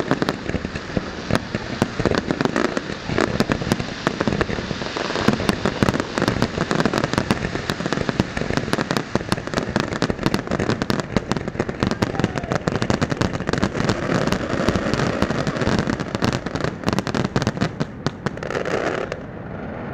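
New Year fireworks display going off in a dense, continuous barrage of overlapping bangs and crackles, easing off near the end.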